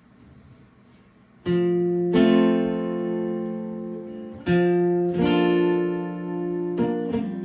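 Acoustic guitar: after a brief hush, chords are strummed about a second and a half in and left to ring. Fresh strums follow every second or two, with a quick run of strums near the end.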